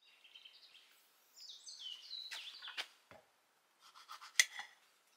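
Birds chirping, then a few short cuts and clicks of a knife slicing tomatoes over a ceramic bowl. The sharpest click comes about four seconds in.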